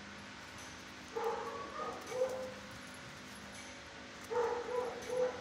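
Dog barking in two short bursts of a few barks each, about a second in and again near the end, over a steady low hum.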